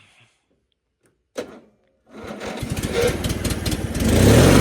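The 1997 MTD Yard Machines riding mower's engine being cold-started. After a short click, the electric starter cranks it from about two seconds in, turning over easily, and about four seconds in the engine catches and runs steadily.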